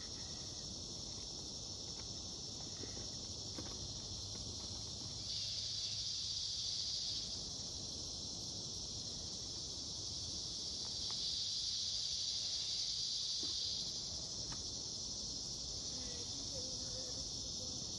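Steady high-pitched chirring of insects, like a chorus of crickets, swelling louder twice, about five seconds in and again about eleven seconds in.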